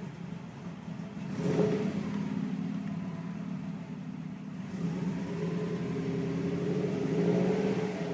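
2002 Subaru WRX's turbocharged flat-four idling, then revved up twice, each rev held for a few seconds. The engine has a rough idle that the owner suspects comes from a vacuum leak.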